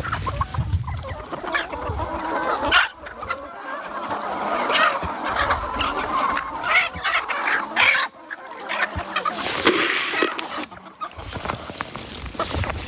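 A flock of free-range chickens clucking, with many short calls from several birds overlapping.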